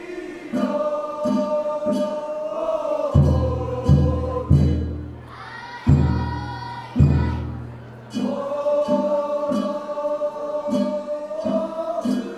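A chorus of men singing a festival boat song (funauta) in long held notes, with a light beat tapping about every 0.6 s. Between about three and seven seconds in, a large drum comes in with heavy, uneven strokes.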